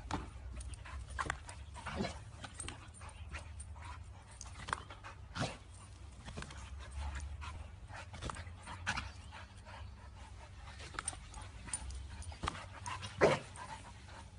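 Pit bull-type dogs panting as they leap to knock a balloon about, with scattered soft taps and thumps at irregular times, the loudest near the end, over a low steady rumble.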